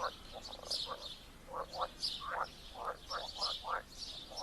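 Frogs croaking in chorus, short calls overlapping several times a second, with birds chirping higher above them.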